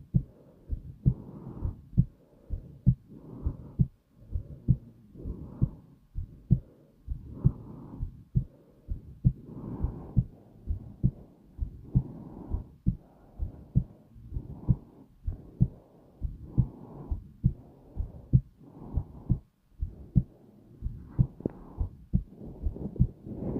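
A heartbeat thumping in a slow, regular rhythm of short low beats, with a soft rushing noise between them.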